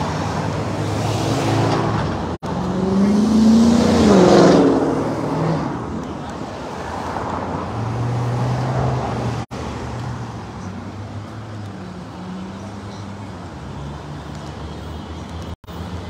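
Road traffic on a busy street: a steady wash of car engines and tyres, with one vehicle passing close about three to four seconds in, its engine note rising then falling. The sound breaks off for an instant three times.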